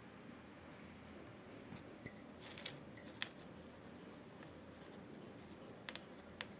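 Broken terracotta clay-pot shards clicking and crackling: a burst of sharp, brittle clinks about two seconds in, opening with one loud click, then a few more clicks near the end.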